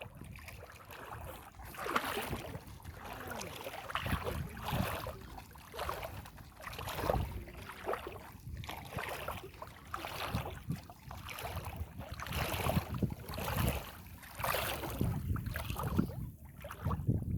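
Water splashing and sloshing in repeated strokes, roughly one every second or two, as something moves through a river.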